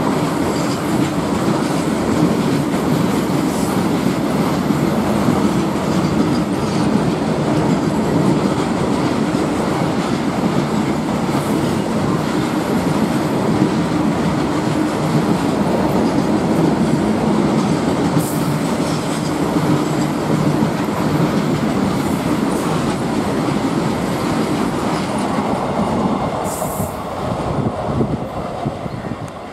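Empty open-top freight wagons of a goods train rolling past close by: a steady, loud rumble with wheels clattering over the rail joints. The noise falls away near the end as the brake van goes by.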